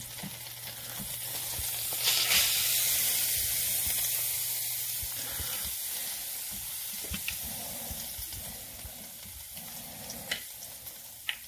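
Rabbit pieces frying in oil in a skillet, a steady sizzle that swells about two seconds in and eases off, with a couple of sharp pops near the end.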